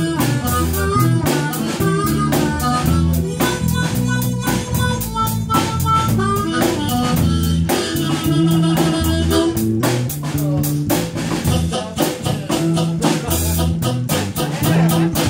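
Live blues band playing: electric guitar, bass and drum kit with a steady beat, and a harmonica played into a microphone.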